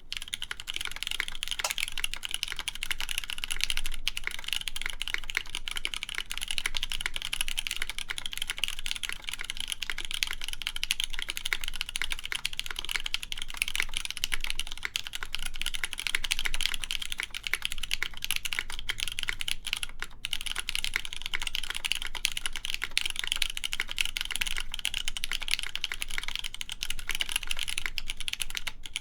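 Continuous fast typing on the Unagi mechanical keyboard, with lubed Cherry MX Black Clear Top linear switches in a polycarbonate plate and GMK keycaps: a dense stream of keystroke clacks. There are short pauses about twenty seconds in and again near the end.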